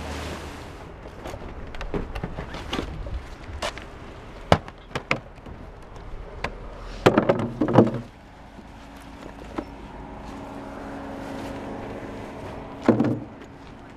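Plastic gear tote and dive gear being handled: scattered knocks and clunks as the box is set down and gear is lifted in and out, with a louder cluster about halfway through and another near the end.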